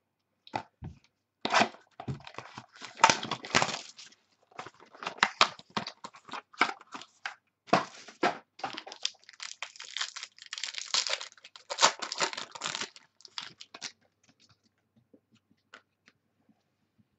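A football trading-card pack being torn open by hand, in a long run of short tearing and crinkling strokes of its wrapper that die away near the end.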